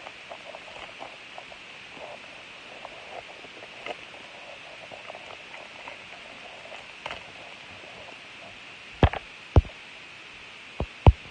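Foil wrapper of a trading-card pack crinkling and rustling softly in the hands, followed near the end by four sharp knocks, the loudest sounds here.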